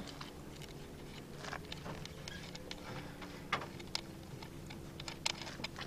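Scattered small clicks and ticks as hands fit wire connectors onto a battery terminal, over a faint steady hum.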